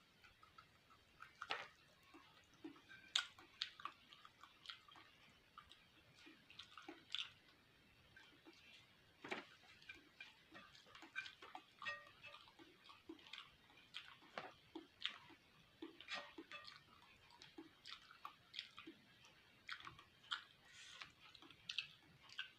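Quiet, close-up eating sounds of a person chewing fried beef fat: irregular wet smacks and small clicks of the mouth, a few a second.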